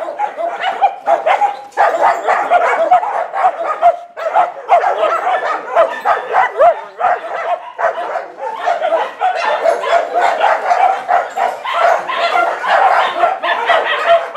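Many dogs barking and yipping at once, a dense, unbroken chorus of overlapping barks.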